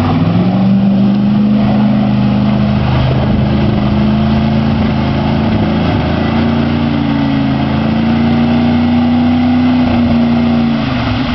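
Ford F-150 pickup's engine revving up and held at high revs while the truck churns through deep mud and water. The pitch dips briefly about halfway and drops off near the end.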